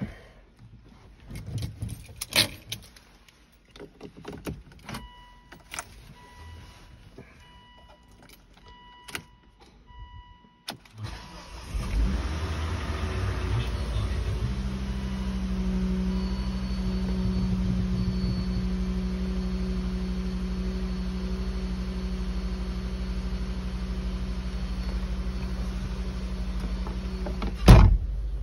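Handling clicks and a dashboard warning chime in short repeated beeps. About 11 seconds in, the cold engine of a 2005 Volvo V50 cranks, catches on the first try after sitting for days, and settles into a steady idle. A sharp loud knock comes near the end.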